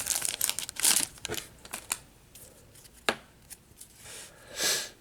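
Baseball card pack wrapper being torn open and crinkled, busy for the first second and a half, then softer rustles and ticks with one sharp click about three seconds in as the cards are handled.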